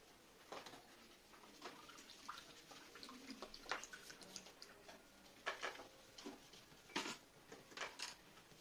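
Quiet room with faint scattered small clicks and taps, the loudest a few sharp ticks from about halfway through.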